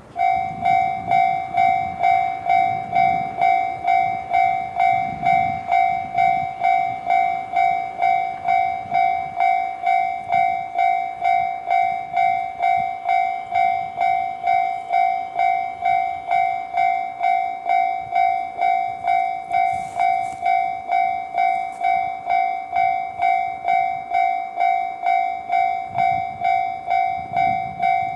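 Japanese railway level-crossing alarm ringing with the JR standard electronic bell sound. It is a loud, evenly repeated clang, about two strokes a second, each dying away quickly, and it cuts in at the start.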